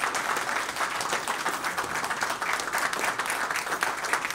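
An audience applauding: a steady round of many hands clapping.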